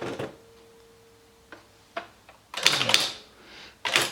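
Esselte 80 electric typewriter: a few sharp clicks, then a quick burst of clattering from the keys and print mechanism a little before three seconds in, and another click near the end, over the machine's steady running hum.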